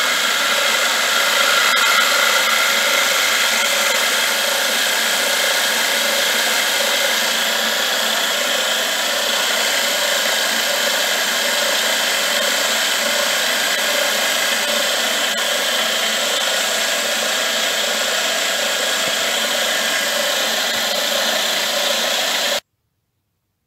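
Milling machine running, its end mill cutting along the edge of a metal plate: a steady machining whine with the hiss of the cut. It cuts off suddenly near the end.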